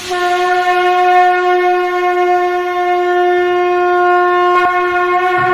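A wind instrument holding one long, steady, horn-like note with strong overtones, starting abruptly.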